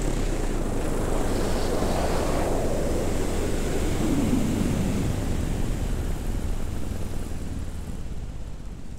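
Air rushing over the microphone as a paramotor glides in to land with its engine off; the rush slowly fades toward the end.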